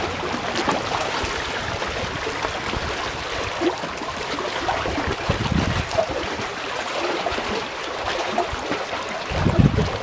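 Heavy rain falling steadily in a thunderstorm, an even hiss with fine pattering, and a low rumble coming in near the end.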